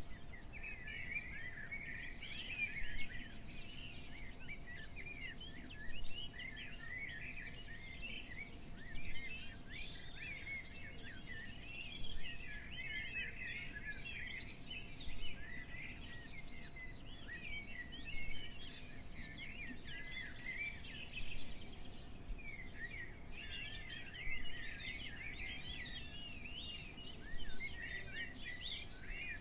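Many small birds chirping and twittering together in a dense, continuous chorus. A brief louder bump recurs about every three seconds.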